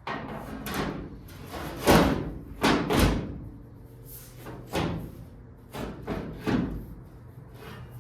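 About eight hard bangs and clunks at uneven intervals, the loudest around two and three seconds in, each with a short ringing tail.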